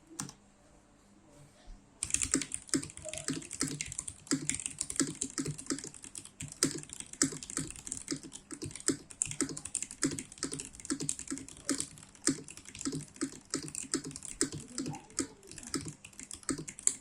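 Typing on a stock, unmodified Vortex VX8 mechanical keyboard with Gateron Yellow linear switches: a quick, steady run of keystrokes that starts about two seconds in.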